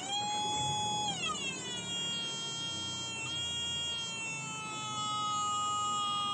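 TriField TF2 EMF meter's audio tone, a steady electronic whine with several overtones that jumps in as the car's engine starts. After about a second it glides down in pitch and settles to a steady lower tone as the field reading falls from its spike.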